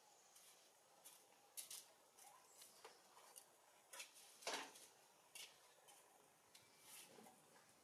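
Near silence with faint, scattered clicks and ticks at irregular intervals, the strongest about four and a half seconds in.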